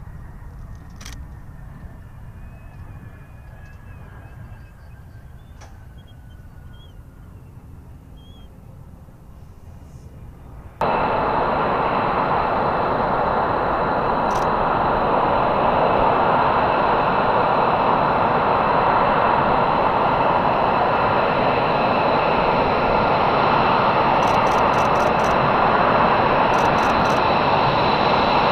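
F-22 Raptor's twin Pratt & Whitney F119 turbofan engines: first a faint rumble with a slowly falling whine as the jet rolls out after landing, then, about eleven seconds in, a sudden jump to a loud, steady jet whine with several held tones as it taxis close by. A few quick high ticks come near the end.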